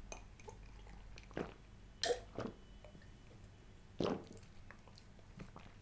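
A person drinking cola from a glass mug: a few faint, separate gulps and swallows.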